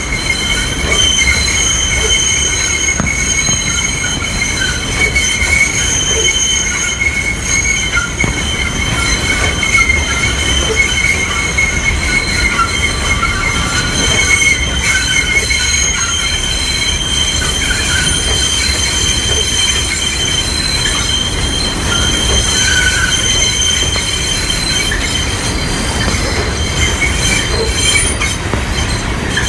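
Subway train wheels squealing against the rails: a loud, steady, high screech of several tones that wavers slightly.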